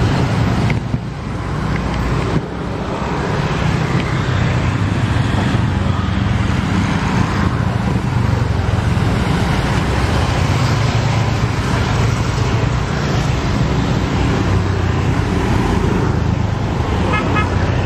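Steady stream of motor scooters, vans and cars passing close by, with engine hum and tyre noise running together into continuous traffic noise.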